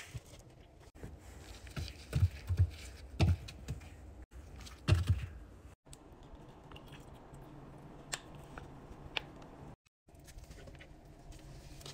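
A hand swishing and slapping shallow water in the bottom of a stainless-steel top-loading washing machine tub, with low thumps and, later, a few sharp clicks.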